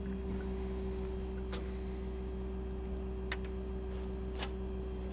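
Steady low engine hum, most likely the pump hoist truck's engine idling, with three short sharp clicks spread through it.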